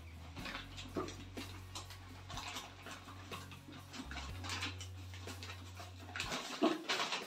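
Intermittent rustling and light knocks as a whey protein pack is handled and opened.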